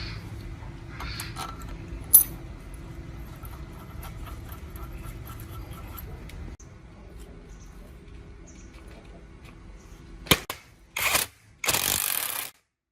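Workshop handling sounds: a sharp click about two seconds in over a low steady hum, then near the end a click and a few short bursts of hissing noise.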